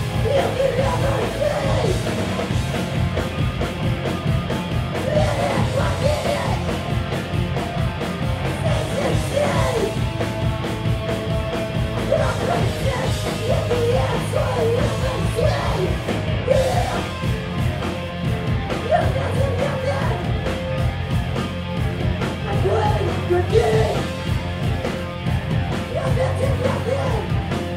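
Hardcore punk band playing live, with electric guitars and drums driving hard under a vocalist yelling into the microphone.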